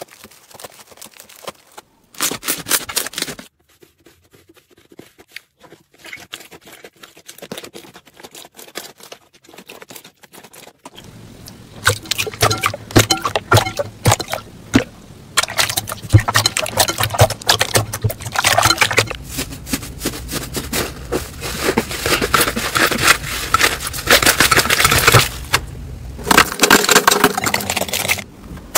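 Hands squeezing, poking and pressing slime, making runs of small sticky clicks, crackles and squelches. These are sparse and quieter for about the first ten seconds, then louder and denser.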